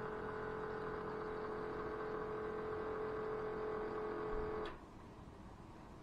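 A steady, pitched hum that stops suddenly with a click a little before the end, leaving only faint room noise.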